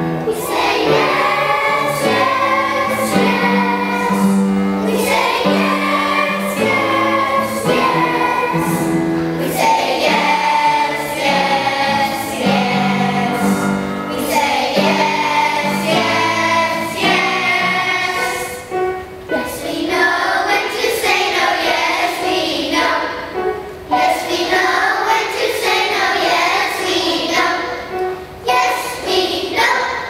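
Children's choir singing a song, with instrumental accompaniment holding low chords underneath.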